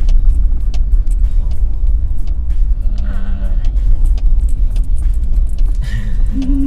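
Car driving, heard from inside the cabin: a steady low rumble of road and engine noise with many small knocks and rattles.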